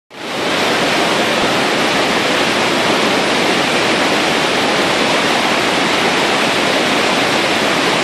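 Devil's Throat (Garganta del Diablo) waterfall at Iguazú Falls: a loud, steady rush of massive falling water that fades in quickly at the start.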